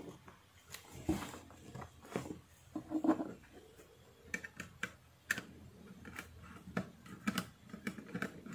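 Scattered small clicks and taps, with a duller knock about three seconds in, from hands handling wires, test leads and an amplifier circuit board. The clicks come thicker in the second half.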